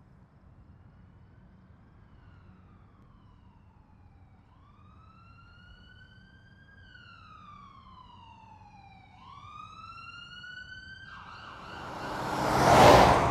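A siren wailing, its pitch slowly rising and falling, growing louder as it approaches. A vehicle rushes past loudly near the end.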